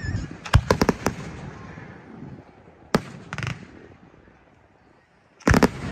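Aerial fireworks shells bursting overhead: a quick run of four bangs about half a second in, a sharp bang at about three seconds with a smaller one just after, and the loudest bang near the end.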